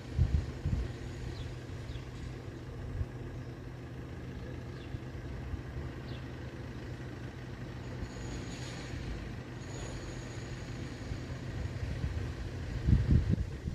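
Steady low hum of road vehicles' engines, with a few short low thumps near the start and again near the end.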